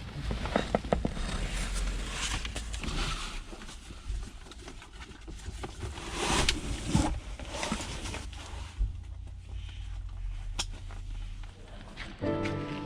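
Wind rumbling on a small action-camera microphone, with irregular crunching scuffs and knocks over it. Music comes in near the end.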